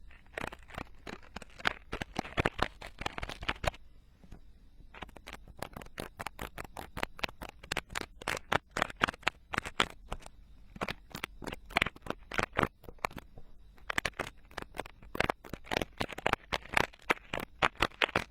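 Ear-cleaning tools scraping and picking inside a silicone binaural microphone ear: dense crackly scratches and clicks, with a pause of about a second near four seconds in.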